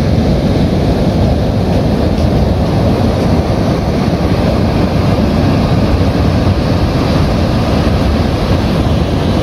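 Ocean surf breaking and washing in, a steady loud rush, with wind buffeting the microphone.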